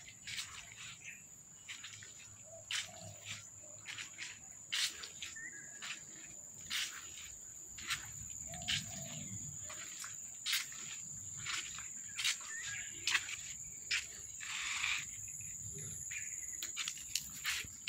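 Outdoor ambience of insects: a steady high-pitched drone, with many short sharp clicks or chirps at irregular intervals.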